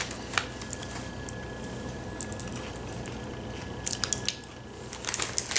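Chocolate-covered corn flakes being bitten and chewed: scattered small crisp crunches that come in a few short clusters, the last and densest near the end.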